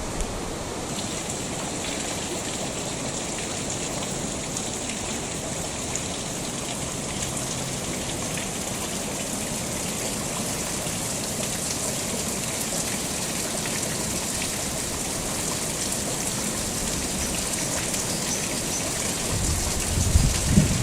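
Steady rushing water noise, like rain or running water, with a few low bumps near the end.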